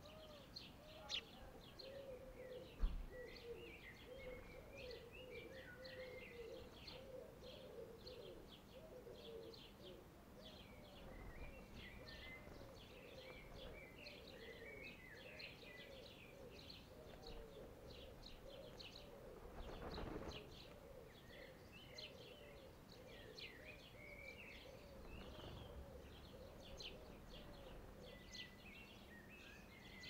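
Faint, continuous chirping and twittering of small garden birds, with a low note repeated over and over underneath and one sharp knock about three seconds in.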